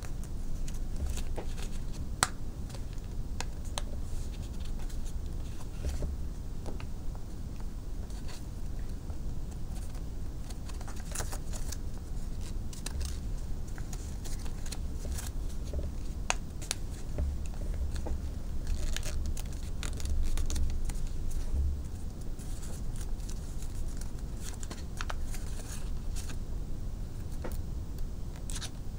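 Origami paper being folded and creased by hand, with scattered crinkles and small ticks of paper against paper and the tabletop, over a steady low hum.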